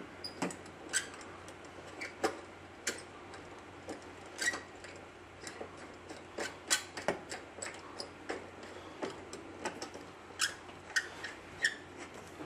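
Irregular light clicks and metallic taps, about two dozen spread unevenly, from a corrugated stainless-steel flex line being bent and its fitting nut handled and threaded on by hand.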